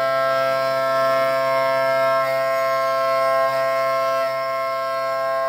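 Milling cutter on a DNM 5700L vertical machining centre cutting aluminium: a steady, high-pitched singing whine made of several tones at once, its pitch shifting slightly about two seconds in and again about a second later.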